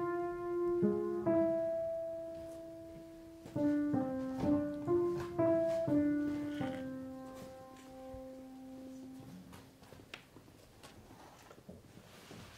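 Piano playing a slow two-voice passage of held notes. The last note fades out about nine seconds in, leaving faint knocks and shuffles.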